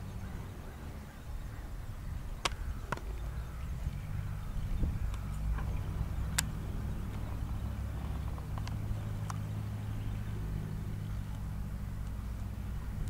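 Low steady rumble with a handful of sharp clicks scattered through it.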